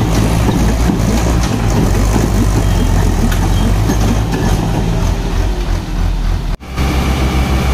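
Diesel tractor engines of a Sonalika Tiger 55 4WD and a Massey Ferguson 9500 running steadily under load as the two pull against each other through a tow bar. The sound cuts out for an instant about six and a half seconds in, then carries on.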